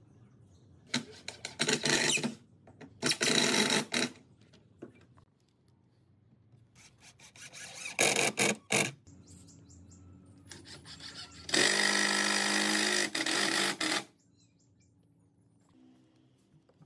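Cordless impact driver driving screws into pine deck slats, running in four short bursts, the longest near the end.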